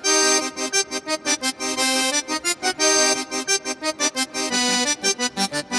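Background music led by an accordion-like reed sound, playing quick, rhythmic notes.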